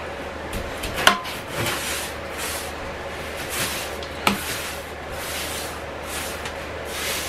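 Straw broom sweeping a hard floor in repeated swishing strokes, with two sharp knocks, one about a second in and one after about four seconds.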